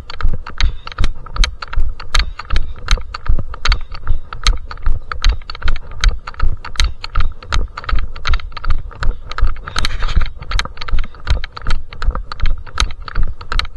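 Running footsteps on a hard surface with the knock and rub of a camera carried in the hand, beating in a steady rhythm.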